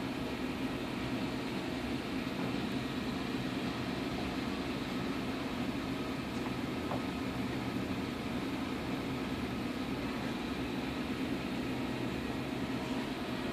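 Steady mechanical hum with an even hiss from running machinery, unchanging throughout.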